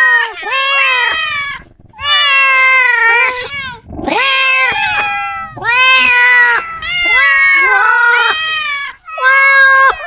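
Cats and kittens meowing loudly, about six long drawn-out meows one after another, some overlapping, with short pauses between them.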